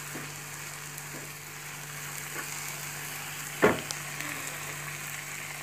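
Carrots cooking in ghee and milk in a pan, sizzling and bubbling steadily while a wooden spatula stirs them. A few light taps, and one sharp knock about three and a half seconds in.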